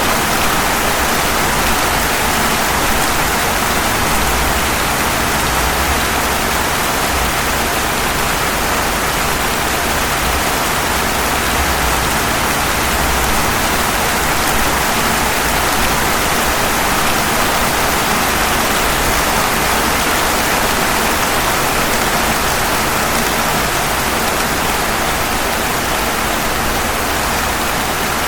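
Steady rain falling on pavement: an even, unbroken hiss with no single drops or other sounds standing out.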